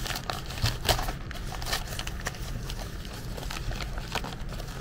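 A plastic mailing bag crinkling and rustling as hands dig into it and pull out a smaller packet, with irregular crackles and clicks.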